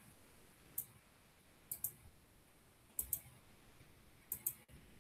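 Faint computer mouse clicks placing the points of a spline in CAD: one click, then three quick pairs spaced a little over a second apart.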